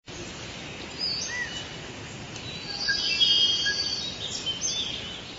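Several birds chirping and whistling over a steady outdoor background hiss, with short calls and trills that grow busier about halfway through.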